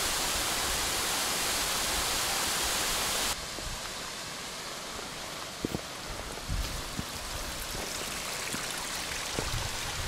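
Steady rush of a waterfall on a fell beck. About a third of the way in it drops suddenly to a quieter wash of water, with a few soft knocks.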